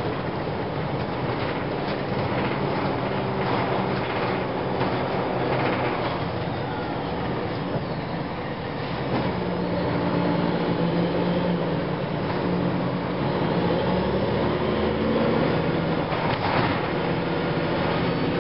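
2004 Gillig Phantom transit bus under way: Cummins ISM diesel engine and Voith automatic transmission running, with a steady howling tone from the transmission that grows stronger about halfway through. Scattered clicks and knocks come through over the running.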